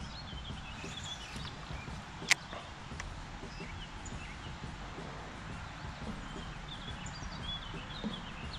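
Quiet outdoor background: a steady low rumble with faint, scattered high bird chirps, broken by one sharp knock about two seconds in and a small click near the end.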